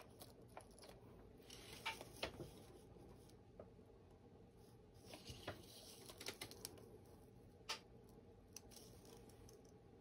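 Faint, scattered clicks and ticks of fingers handling and nudging small pieces of glass on paper, with a light rustle; the sharpest clicks come about two seconds in and again near the end.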